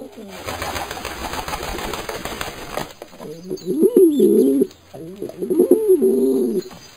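A rushing noise for about three seconds, then pigeons cooing in two long, wavering phrases.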